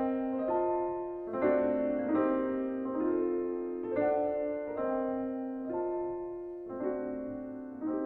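Slow piano music: sustained notes and chords struck about once a second, each fading before the next.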